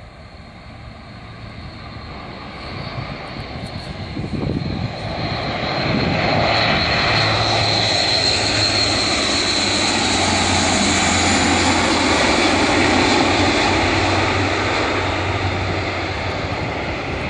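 Airbus A400M's four turboprop engines and propellers flying a low pass: a steady engine sound with a low hum and a high whine, growing louder over the first several seconds as the aircraft approaches, loudest as it passes, then easing slightly near the end.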